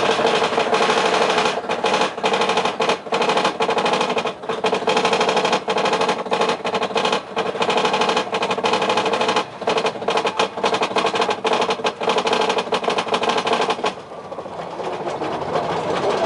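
Roller-coaster lift-hill chain and anti-rollback ratchet clattering rapidly over a steady drone as the mine train is hauled up the lift. The clatter stops suddenly near the end as the train crests, and a rushing noise of the train rolling on builds.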